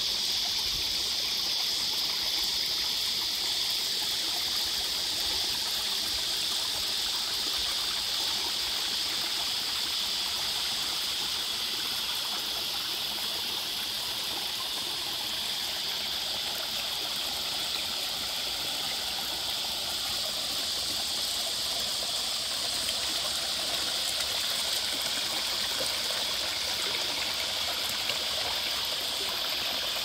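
Creek water running steadily, an even rushing flow without breaks.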